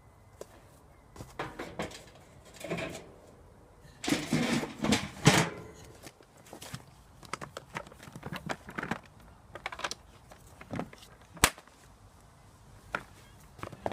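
Irregular knocking, scraping and clattering of hard objects being handled, loudest about four to five and a half seconds in, with one sharp click near the end.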